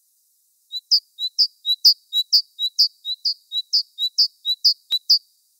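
Bird-like chirping in a fast, even rhythm of about two calls a second, each call a short lower note followed by a louder, higher chirp, about ten calls in all. It starts just under a second in and stops abruptly near the end, with no other sound around it.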